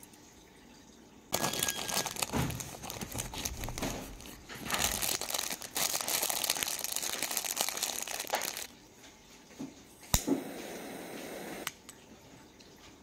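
Clear plastic wrapping around a stack of incense coils crinkling and rustling as hands handle it, for about seven seconds. A sharp click comes near the end, followed by a short steady hiss.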